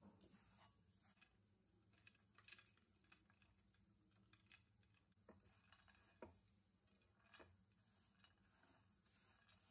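Near silence, with a few faint scattered clicks of a slotted metal spatula against a nonstick frying pan as sticky dates and nuts are stirred.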